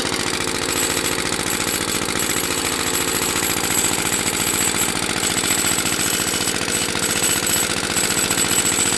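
Single-cylinder push lawn mower engine running steadily at idle on fuel vapor, drawn through a home-made PVC intake with a valve that sets the air-to-fuel ratio.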